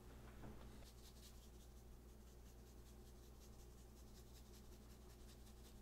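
Faint, rapid scratchy rattling of a seasoning shaker being shaken over food, with a steady low hum underneath.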